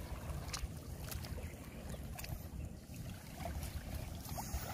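Wind rumbling on the microphone over river water, with a few faint scattered clicks as bare feet and the net move on wet mud.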